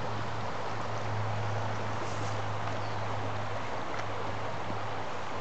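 Shallow creek water running over a rocky riffle, a steady rushing noise, with a steady low hum underneath.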